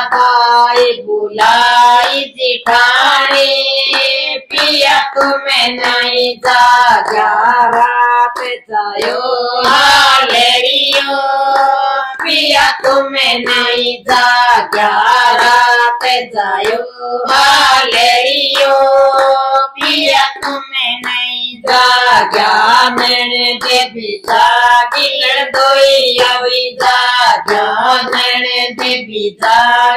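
Women singing a Haryanvi jachcha geet, a folk song for a new mother, keeping time with steady hand claps.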